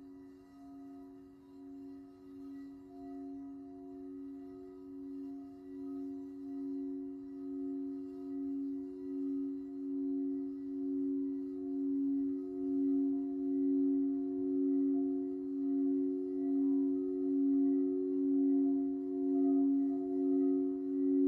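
Two frosted quartz crystal singing bowls sounded together by mallets circling their rims, giving two steady held tones with fainter overtones. The tones waver in a slow regular pulse about once a second and swell steadily louder throughout.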